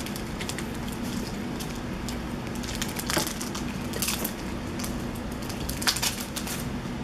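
Foil trading-card booster pack wrappers crinkling and crackling as they are handled and torn open, in irregular clusters of sharp crackles.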